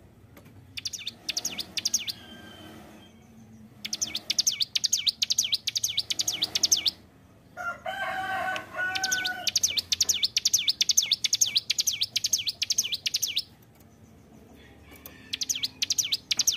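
A ciblek gunung, a prinia, singing hard in rapid runs of high, quickly repeated notes, in four bursts separated by short pauses. A lower, harsher pitched call sounds briefly in the middle.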